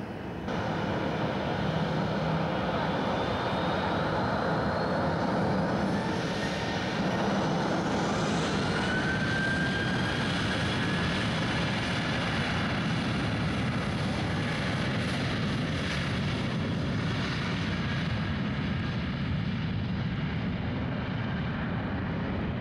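Twin CFM56-7B turbofans of a Boeing 737-700 running at takeoff power as it rolls down the runway: a steady loud jet roar with a whine that rises in pitch during the first half as the engines spool up.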